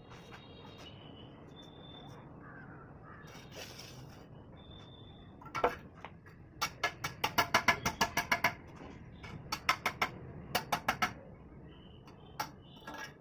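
Sharp knocks or taps in quick runs, about six a second at their fastest, with a few single knocks between the runs.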